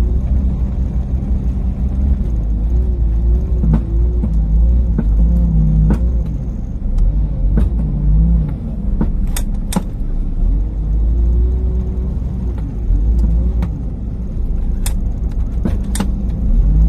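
Fishing boat's engine running with a steady low rumble, with a few sharp knocks and clicks on deck about midway and near the end.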